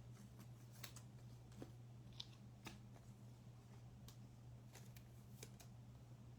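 Quiet handling of trading cards: faint scattered ticks and light rustles as cards are sorted, over a steady low electrical hum.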